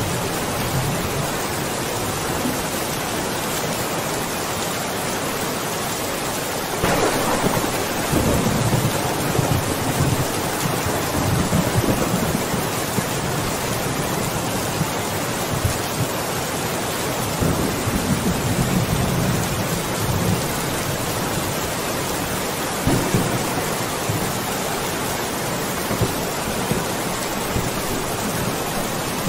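Steady rain falling, with thunder: it breaks suddenly about seven seconds in and rumbles on for several seconds, followed by two more, shorter rumbles later.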